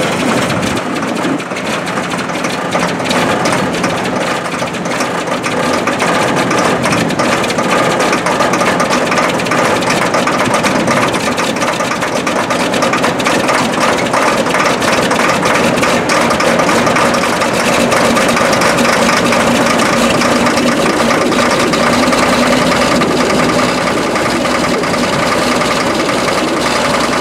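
Case IH 9150 four-wheel-drive tractor's Cummins 855 six-cylinder diesel engine idling just after a cold start in freezing weather, growing a little louder over the first half and then running steady.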